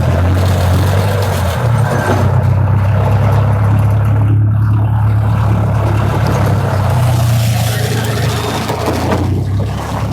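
Theme-park ride train running along: a steady low engine drone under a broad noisy rush, easing off slightly near the end.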